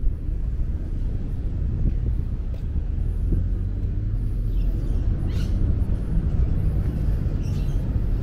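Steady low rumble of outdoor city ambience, with a few faint high chirps about five seconds in and again near the end.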